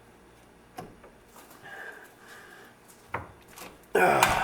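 Hand tool scraping and prying at a grease seal in the bearing bore of a VW trailing arm, with a couple of light knocks and a louder scrape near the end.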